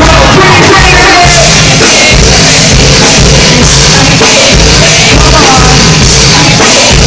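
Loud live music played through a PA: a beat with heavy pulsing bass and drums, with a voice singing over it.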